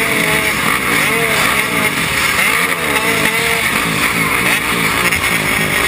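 Several dirt bike engines running at once around a race start line, revving up and down over and over with rising and falling pitch.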